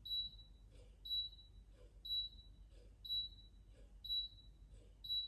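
Philips UVC Disinfection Trolley Gen 2 beeping, short high beeps about once a second: its warning countdown before the UV-C lamps switch on.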